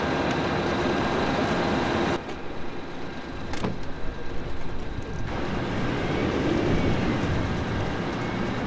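Vehicle engines running as a steady rumble and noise. The sound changes abruptly twice, about two and five seconds in.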